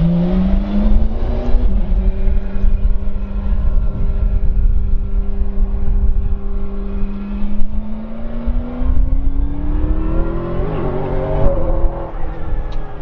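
McLaren 720S GT3 Evo race car's twin-turbo V8 running in low gear. It rises in pitch and drops once, as at an upshift, then holds one steady note for about five seconds. Near the end it rises steadily again under acceleration and breaks off, as at another upshift.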